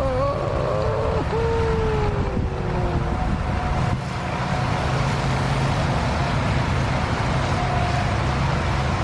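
Strong wind buffeting the microphone, a steady rumbling roar. A faint drawn-out tone falls slowly in pitch over the first three seconds.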